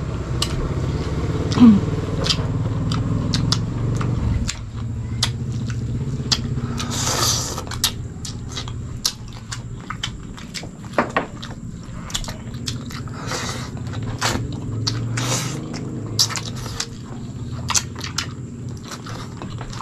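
Close-up eating sounds: chewing and mouth smacks as chicken and rice are eaten by hand, with many small sharp clicks throughout and a short noisy burst about seven seconds in.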